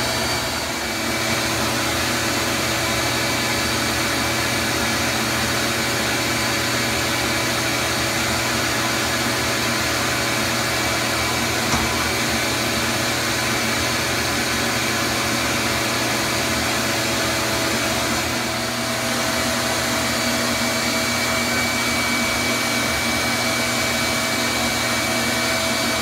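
Bee vacuum motor running steadily: a constant whir with a few fixed tones. Its level dips briefly just after the start and again about two-thirds of the way through.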